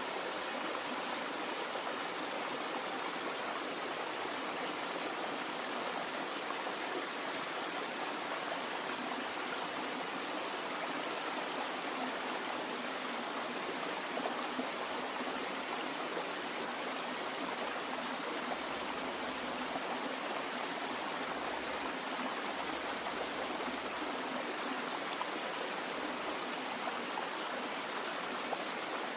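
Running water flowing steadily, an even, unbroken rushing that never changes.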